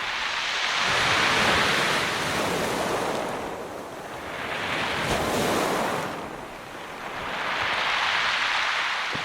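Ocean waves washing onto a shore, three swells of surf noise that rise and fall about every three seconds.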